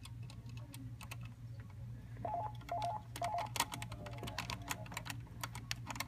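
Hand screwdriver driving a wood screw through a concealed hinge's metal mounting plate: scattered clicks, then rapid clicking from about halfway through. Three short tones sound about two seconds in, over a steady low hum.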